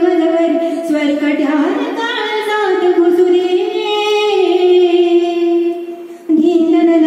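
A woman singing a raga-based Indian classical melody, holding long notes and gliding between pitches with ornaments. She breaks briefly for breath about six seconds in, then comes back on a held note.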